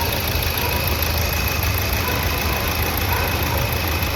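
Nissan Terrano's 1.5-litre four-cylinder common-rail diesel idling steadily, with its injectors freshly serviced and one injector coil replaced. It runs smoothly, without the earlier misfire or knocking.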